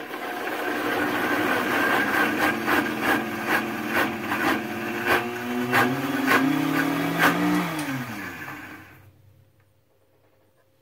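High-speed countertop blender running on a thick cashew ricotta mixture, spinning up at the start and winding down with a falling pitch after about eight seconds. Regular knocks, about two a second, ride over the steady motor sound.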